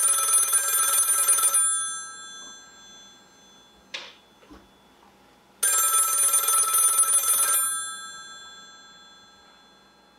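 Red rotary-dial desk telephone's bell ringing: two rings of about two seconds each, about six seconds apart, each fading out after the ring stops. A short knock about four seconds in, between the rings.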